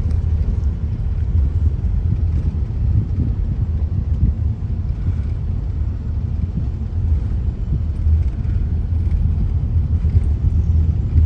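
Steady low rumble of a car driving, heard from inside the cabin: tyre and engine noise with no sudden events.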